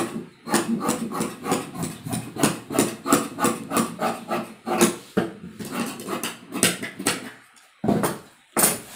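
Large tailor's shears snipping through a layer of dress fabric on a tabletop, a quick run of crunching cuts at about three a second.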